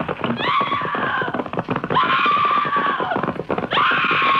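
Three long, high-pitched cries, each about a second, over a fast clatter of knocks.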